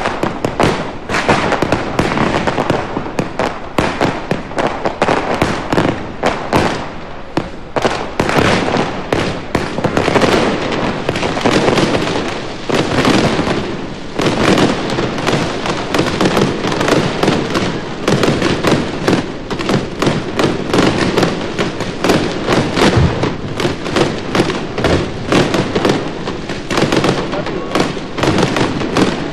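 Fireworks castell firing: a dense, unbroken barrage of rapid cracks and bangs.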